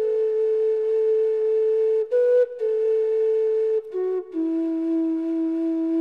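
Slow flute melody of long held notes, briefly stepping up about two seconds in, then settling on a lower note a little after four seconds that is held to the end.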